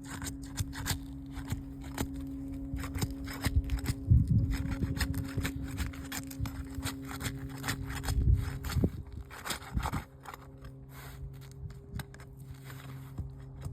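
A roof snake being worked under roof shingles to break them loose: repeated scraping and clicking, with a few heavier low thumps partway through. The prying tore a shingle.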